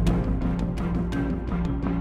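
Background music with a regular drum beat and a stepping melody.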